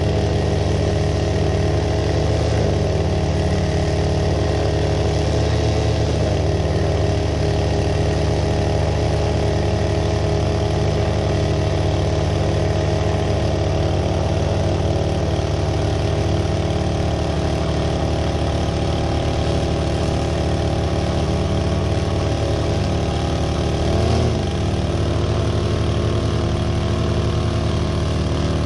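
Small lawn-care engine running at a steady speed while a string trimmer edges the grass along a concrete path. The engine's pitch rises and falls briefly about three quarters of the way through.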